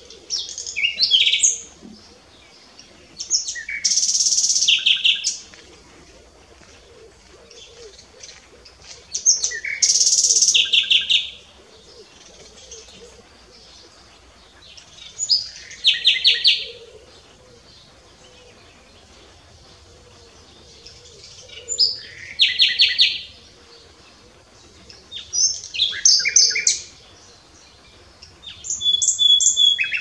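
Common nightingale singing: about seven short song phrases a few seconds apart, each a burst of rapid repeated high notes and whistles.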